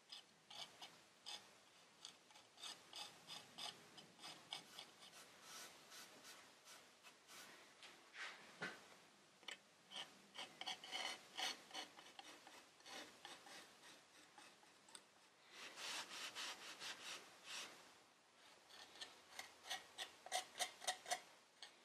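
Faint, quick scrapes of a thin steel palette knife working tinted putty into chips on a painted wooden chair, with a busier run of strokes about two-thirds of the way through and a few sharper ones near the end.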